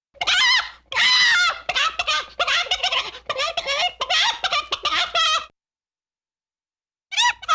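A very high-pitched, squeaky voice in quick giggle-like bursts for about five seconds, falling silent, then starting again near the end.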